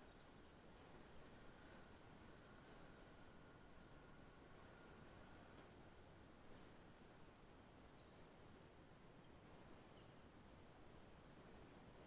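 Near silence: a faint hiss with small, high-pitched squeaks repeating about twice a second.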